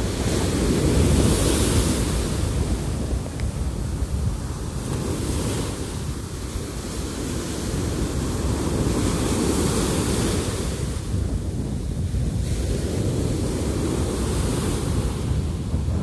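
Small sea waves breaking and washing up a sandy beach, a hissing surge of foam swelling in every four to five seconds, over a steady low rumble of wind on the microphone.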